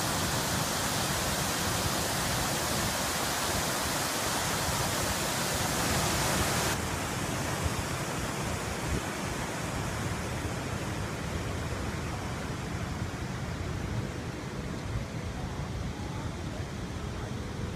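Water pouring over a stepped stone cascade fountain, a steady rushing hiss. About seven seconds in it gives way abruptly to a softer, duller steady hiss with a low rumble underneath.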